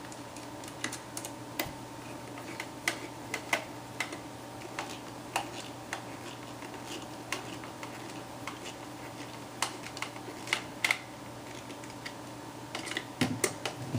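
Irregular light clicks and taps of a screwdriver and plastic parts as a small retaining screw is driven into a Brother toner cartridge housing, over a faint steady hum.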